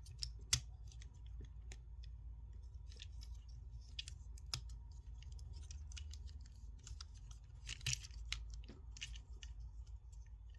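Plastic parts and ratcheting joints of a Transformers action figure clicking and knocking as it is handled and transformed by hand: irregular small clicks, with sharper snaps about half a second, four and a half and eight seconds in.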